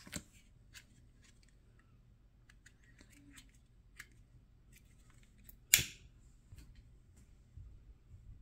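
A disposable lighter being clicked to light it: several sharp clicks, one much louder about six seconds in, with fainter ticks and light handling between.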